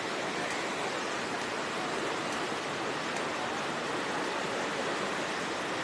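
Muddy river in flood rushing past with a steady roar of water.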